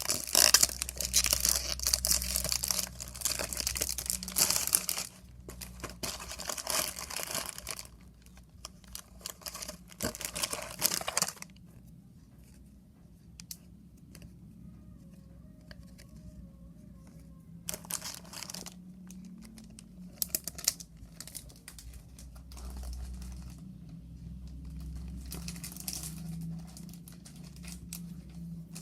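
Oreo packaging being handled and opened: plastic wrapper crinkling and tearing in dense, continuous handling for about the first eleven seconds, then mostly quiet with occasional short crinkles.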